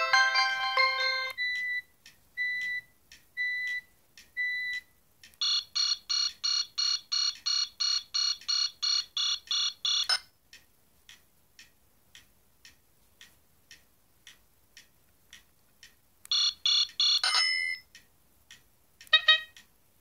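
BlackBerry 8700g's built-in speaker playing its notifier and alert tones one after another as the list is previewed. First comes the end of a short melody, then a handful of short single beeps. A fast pulsing ring at about four pulses a second follows for several seconds, then a stretch of faint regular ticks, and near the end a brief burst of pulses and a short chirp.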